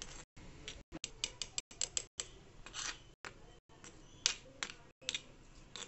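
Steel spoon scraping and clicking against a stone bowl as sliced shallots are mixed and pressed into chili powder. The strokes come irregularly, in a quick cluster at first and then as a few sharper scrapes about half a second to a second apart. Brief dropouts to silence break them up.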